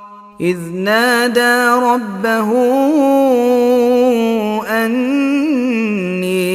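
A man's voice chanting Quran recitation in one long melodic line, the pitch rising and falling, after a brief pause at the start.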